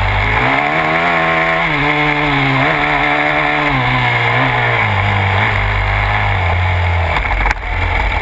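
Yamaha YZ250F's 250cc four-stroke single-cylinder engine on the move, heard from a camera mounted on the bike, its revs climbing and dropping several times before settling lower and steadier. A short knock comes near the end.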